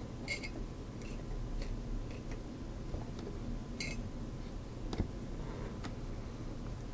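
Faint steady low hum with a few scattered light clicks, typical of small hardware being handled on a workbench; the sharpest click comes about five seconds in.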